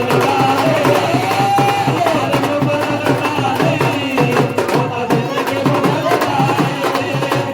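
Worship music with a steady drum beat under a wavering melody line.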